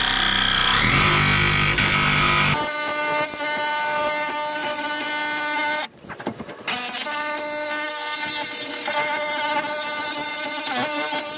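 Cordless jigsaw cutting through the sheet steel of a van's sliding door, a loud steady whine with the blade chattering in the metal. The saw stops for a moment about six seconds in, then starts cutting again.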